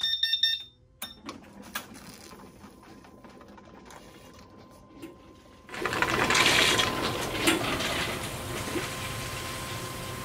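Industrial water chiller for a CO2 laser switched on: a few quick electronic beeps, then its pump starts running with a steady hum. About six seconds in a louder, rushing mechanical noise sets in as the pump fills the laser tube's cooling jacket with water.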